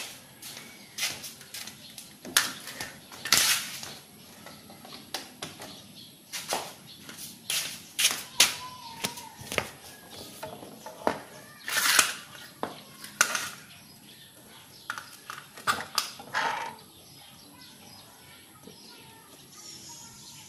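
Irregular clicks, knocks and rustles of hands handling the cut-off machine and its parts as it is readied for a test run after a carbon brush replacement. The motor is not yet running.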